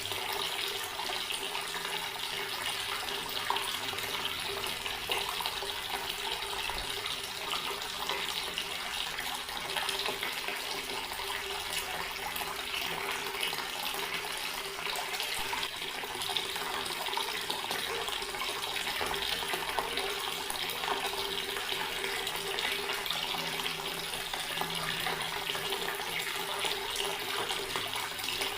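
Water running steadily from a tap in an even, unbroken splashing stream, with a faint steady tone underneath.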